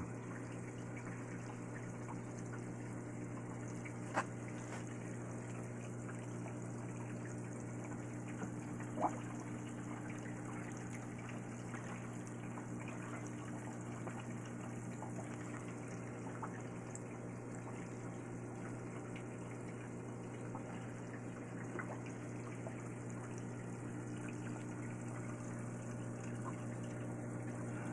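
Aquarium filter pump running steadily with a low hum, its return water trickling and splashing into the tank. Two short clicks stand out, about 4 and 9 seconds in.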